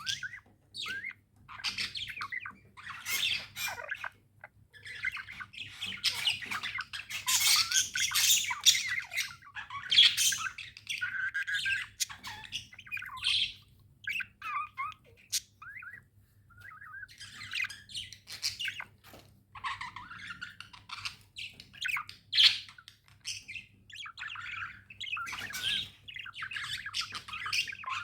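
Pet budgerigars chattering: a continuous run of short chirps and scratchy squawks, with the calls busiest and most overlapped about seven to ten seconds in.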